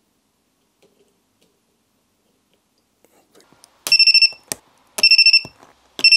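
Battery spot welder at work: its buzzer gives a high-pitched beep about half a second long as the probes touch the tab, then the weld pulse fires with a sharp snap, twice, with a third beep starting at the end, while nickel tabs are welded onto the new batteries on the cluster's circuit board.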